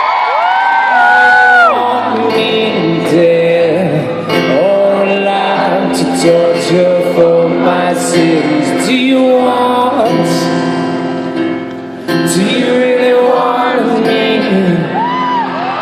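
Acoustic music: guitar accompanying wordless singing with long held and sliding notes.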